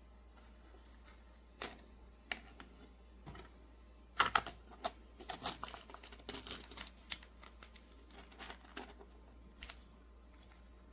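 Irregular small clicks, taps and rattles of rotary tool accessory bits being handled, a few at first and then busy clusters through the middle.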